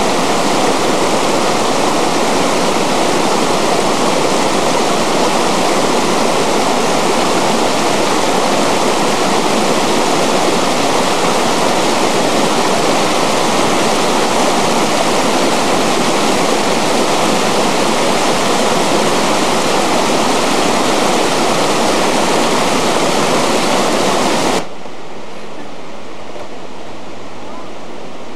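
Loud, steady rush of a mountain waterfall's creek tumbling over rocks. About 25 seconds in it drops suddenly to a quieter hiss.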